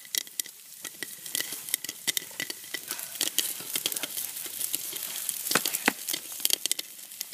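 Popcorn kernels popping in a lidded saucepan of hot oil over a wood fire: a quick irregular run of pops and ticks over a sizzling hiss, with two louder pops close together about two-thirds of the way through.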